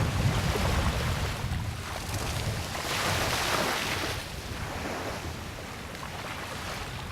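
Ocean surf: a wave washing up the sand, its hiss swelling about three seconds in and then dying away. Wind rumbles on the microphone, strongest near the start.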